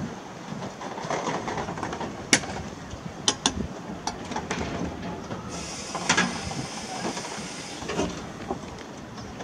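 Peckett saddle-tank steam locomotive moving slowly over the rails, with scattered sharp clanks and clicks from its wheels and wagons. About halfway through, a burst of steam hisses for about two seconds.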